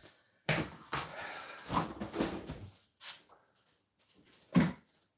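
A large plastic storage tub and its lid rattling and scraping as they are handled, followed by a refrigerator door being opened. There is a small knock midway and one sharp, loud knock near the end.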